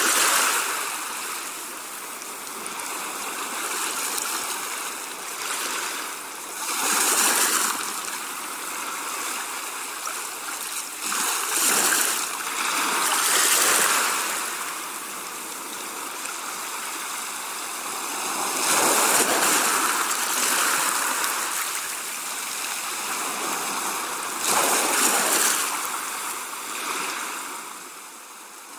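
Rushing wind and road noise inside a moving car, swelling and easing every few seconds.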